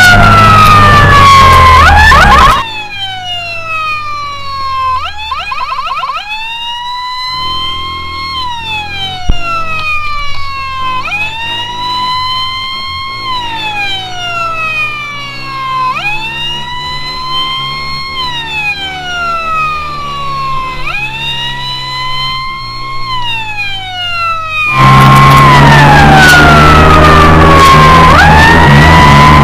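Fire-rescue vehicle's siren wailing, its pitch rising quickly and then falling slowly, about one cycle every five seconds, with a short fast warble about five seconds in. Over the first couple of seconds and the last few seconds, louder background music sits on top of the siren.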